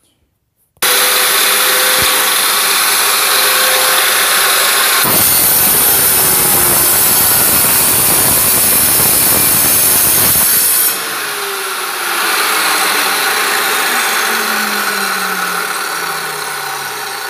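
Wet tile saw motor starting suddenly about a second in and running, then its diamond blade grinding through a tile for about six seconds, louder and rougher as it cuts. After the cut the tone falls slowly in pitch as the blade winds down.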